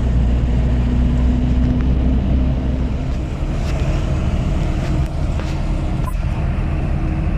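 Moskvich 412's four-cylinder engine droning under way with tyre and road noise, heard from inside the cabin; the note of the drone changes about three seconds in.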